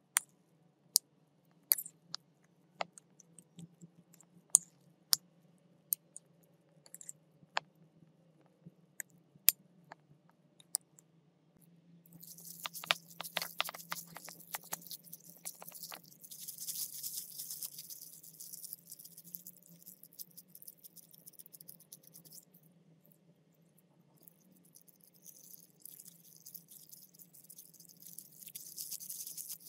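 A metal spoon clicks and scrapes against a ceramic bowl as mashed potato is mixed, in sharp single clicks about one or two a second. Then plastic food-prep gloves crinkle and squish while kneading soft mashed-potato dough, a steady hissy rustle that drops away briefly about three-quarters of the way through and returns.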